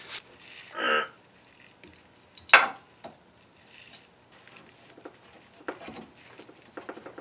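Scattered light clicks and knocks of a steel sway bar bracket and its rubber bushing being worked into place against the car's frame while the bolt holes are lined up, with one sharper knock about two and a half seconds in.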